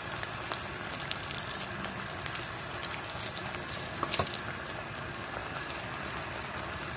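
Pot of squid adobo simmering in its soy and vinegar sauce: a steady bubbling hiss with scattered small crackles, and one sharper click about four seconds in.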